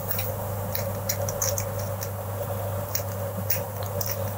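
Irregular small clicks and scrapes of a tester screwdriver working a screw terminal on a plastic bulb holder, with the plastic holder being handled, over a steady low hum.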